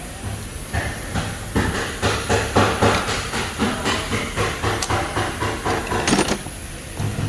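Quick, irregular metallic knocking and clattering, about three to four strikes a second, over a steady low hum.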